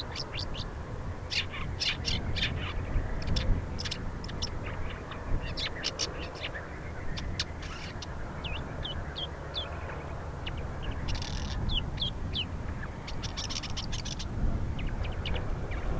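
Male woodchat shrike singing: a varied song of short, high chirps, whistles and scratchy notes in quick runs, with a steady low rumble beneath.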